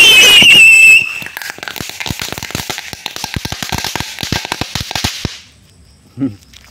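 Small chili firecrackers (petasan cabai) strapped to a tin can going off: a loud, wavering whistle for about the first second, then a rapid, irregular string of sharp crackling pops that stops about five seconds in.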